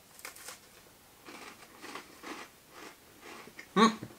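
A person chewing a small cream-and-cocoa sandwich biscuit, with soft crunchy chews every half second or so. Near the end there is a short hummed 'mm' from the eater.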